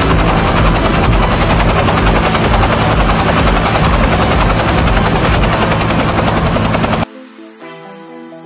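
A small electric motor in a homemade matchbox toy helicopter spinning its rotor, a loud steady buzzing whir that cuts off suddenly about seven seconds in. Soft background music follows.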